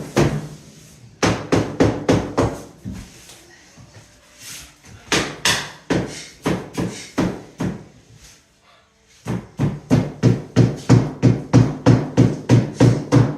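Rubber mallet tapping luxury vinyl planks to seat and lock them together: quick runs of hard knocks, about three or four a second, broken by short pauses, with the longest run near the end.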